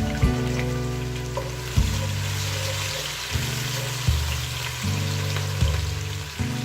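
Food sizzling as it fries in a pot, with background music carrying a steady beat and low bass notes.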